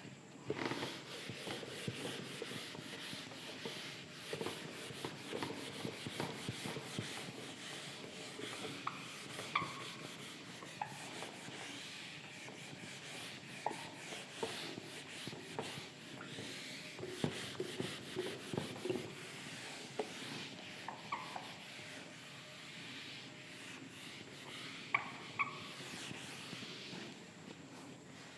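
Faint scratching and rubbing of handwriting, with small ticks scattered throughout.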